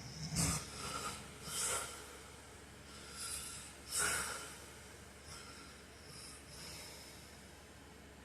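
A sleeping man snorting and breathing noisily: a string of short, airy snorting breaths, loudest near the start and again about four seconds in, growing fainter toward the end.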